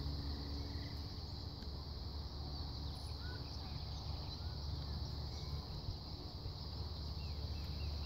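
Outdoor ambience: a low wind rumble on the microphone, a steady high insect hum, and a few faint bird chirps in the middle.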